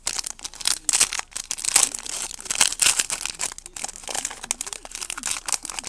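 Foil wrapper of a football trading-card pack being crinkled and torn open, with dense crackling rustles throughout.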